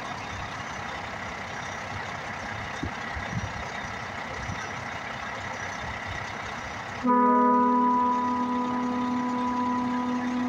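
A dump truck idles with a steady engine rumble. About seven seconds in, a long, steady air horn blast starts and is held, much louder than the idle.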